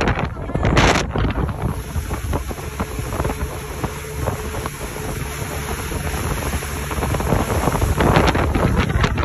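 Wind buffeting the microphone on a fast-moving motorboat, over the steady rumble of its engine and the rush of water from the wake, with louder gusts about a second in and near the end.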